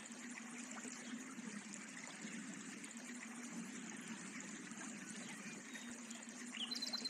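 Faint, steady rushing like running water from a stream or trickle.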